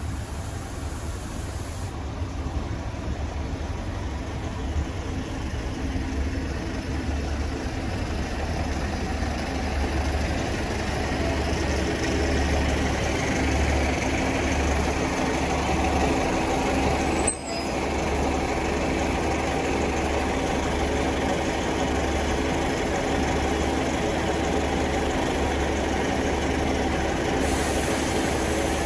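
Diesel engine of a GWR Class 150 Sprinter diesel multiple unit running with a steady low hum. It grows louder over the first dozen seconds as the train comes in, then holds steady. There is a brief click about 17 seconds in.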